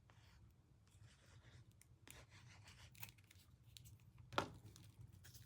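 Faint handling of paper and cardstock: light rustles and small clicks as a piece is fitted onto a card, with one sharp tap about four seconds in.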